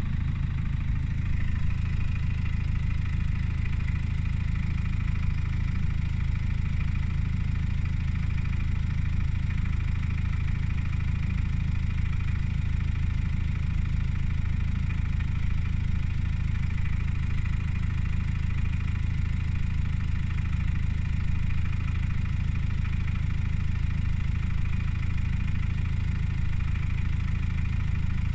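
Subaru Outback 2.0D's flat-four turbodiesel engine idling steadily with an even, rapid pulsing clatter, a noise the owner finds abnormal.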